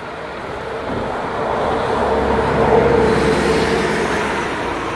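A passing vehicle, a steady rushing noise with a faint hum that swells to its loudest about three seconds in and then fades.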